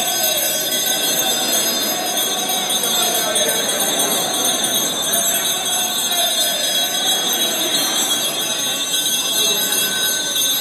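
Bells ringing steadily over the murmur of a crowd inside a church.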